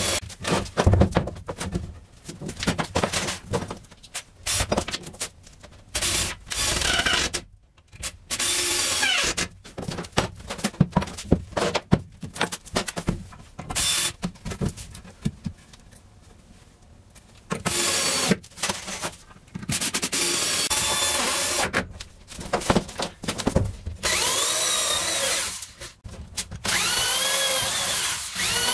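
Corded electric drill driving screws into 2x4 wall framing in repeated bursts of a second or two, its motor whine rising and falling in pitch. Between the bursts come knocks and clatter of wood being handled.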